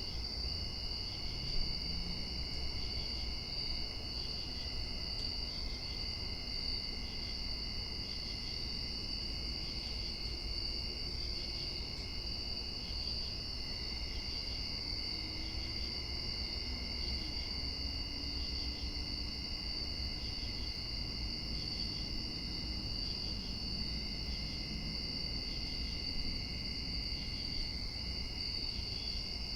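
Night-time outdoor ambience of crickets and other insects trilling in a steady, continuous chorus, with a faint pulsing call repeating every second or so and a low rumble underneath.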